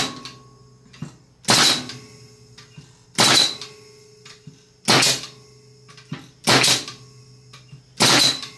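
Pneumatic framing nailer firing nearly 4-inch framing nails into a block of timber: six sharp bangs about one and a half seconds apart, each with a short tail.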